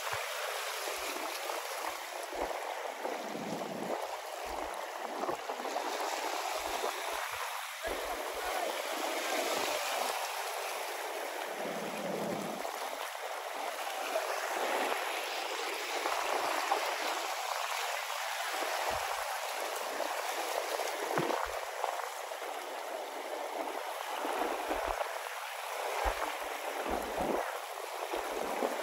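Small sea waves washing in along the shore, a continuous rushing wash that swells and eases every few seconds.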